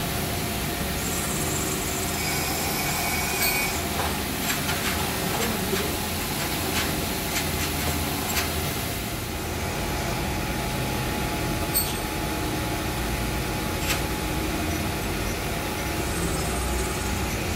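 Grinding machine running steadily as engine valves are ground, its wheel under a flood of milky coolant. Scattered sharp clicks sound now and then, several in the first half and a couple later.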